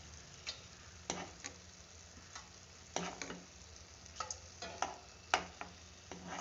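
A metal ladle scraping and knocking against a pan while gravy is scooped off cooked chicken pieces: a series of short scrapes and taps, roughly one or two a second, over a faint simmering background.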